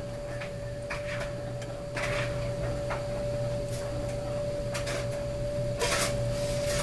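Raw bacon being pulled apart by hand and small pieces dropped into an empty nonstick pot: soft, irregular taps and rustles, a little louder near the end, over a steady background hum.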